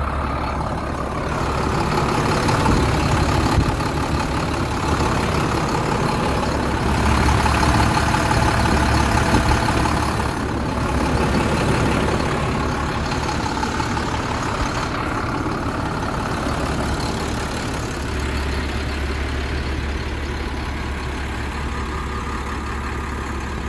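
2006 International 4400 truck's diesel engine idling steadily.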